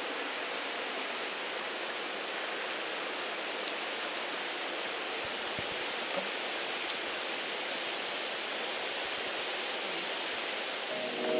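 Steady rush of a river's current flowing past. Music comes in right at the end.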